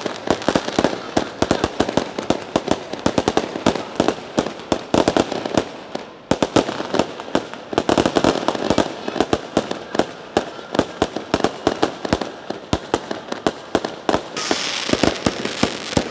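Fireworks going off in a fast, unbroken run of bangs and crackles, many reports a second, with a short lull about six seconds in. Near the end a steady hiss joins the bangs.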